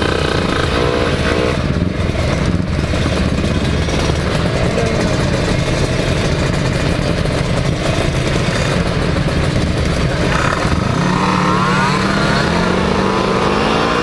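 Several two-stroke motorcycle engines, Kawasaki Ninja 150s among them, running together and being revved hard. From about eleven seconds in, one engine note climbs steadily as the bikes pull away under acceleration.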